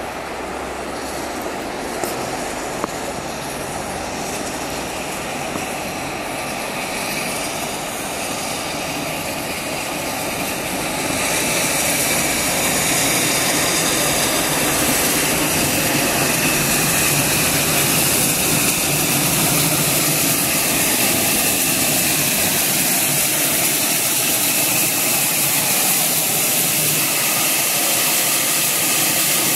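Great Western 64xx 0-6-0 pannier tank locomotive 6412 drifting into the station and standing at the platform, giving off a steady hiss of escaping steam. The hiss grows louder about a third of the way in and holds there.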